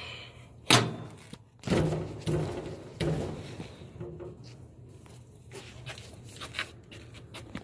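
Metal clanks and knocks from a wrench and hands working on a belt-drive blower motor's mount. There is a sharp knock about a second in, then several duller clanks with a little ringing, and lighter ticks near the end.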